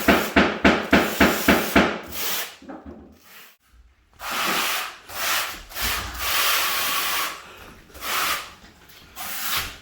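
Trowel scraping glue across a wooden subfloor: quick back-and-forth strokes about four a second, then a short pause and a few longer, slower sweeps.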